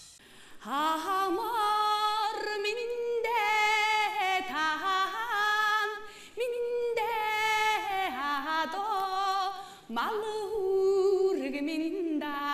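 A woman singing a Mongolian folk song alone, with no accompaniment, in long held notes with quick wavering ornaments and a few short breaks between phrases.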